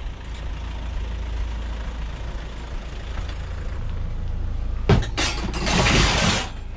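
Steady low rumble, then about five seconds in a sharp knock and a loud scraping rustle as scrap items in the back of a van are moved about.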